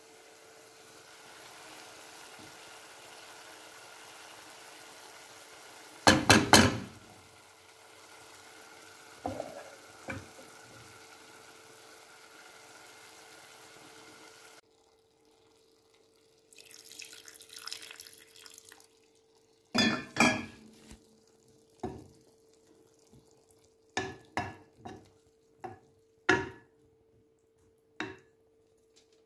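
Wooden spoon working in a non-stick pot of vegetables and quinoa, ending in a string of sharp knocks against the pot. In the first half a steady hiss comes from the pot, with a loud clatter about six seconds in.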